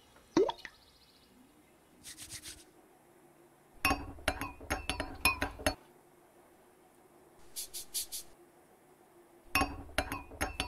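Two runs of quick, light clinks and clatters of glassware and dishes being handled, the first about four seconds in and the second near the end.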